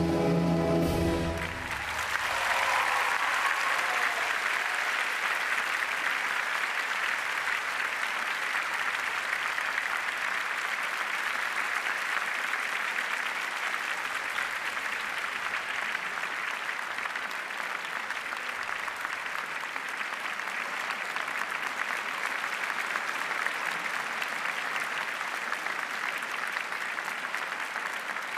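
Ballet music ends on a held chord about a second and a half in, and the audience breaks into steady applause that carries on, easing slightly toward the end.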